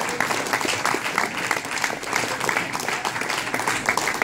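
Audience applauding and cheering at the end of a song.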